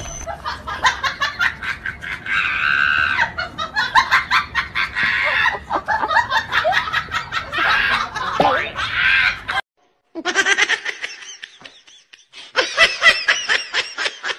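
High-pitched human laughter in rapid ha-ha bursts, cutting off abruptly about ten seconds in and starting again near the end.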